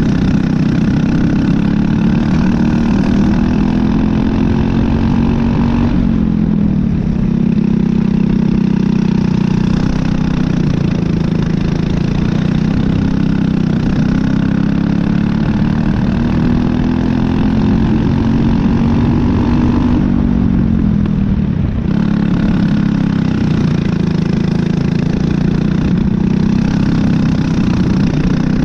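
Briggs & Stratton LO206 single-cylinder four-stroke kart engine at speed, heard close up from the kart. Its note climbs steadily and falls twice, about six and twenty-one seconds in, before rising again.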